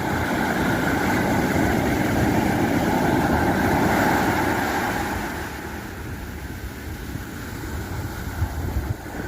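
Pacific Ocean surf washing on the beach: a steady rush of waves that is louder for the first five seconds or so, then eases off.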